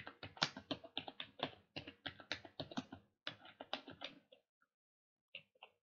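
Computer keyboard typing: a quick run of keystrokes that stops about four seconds in, followed by two more clicks near the end.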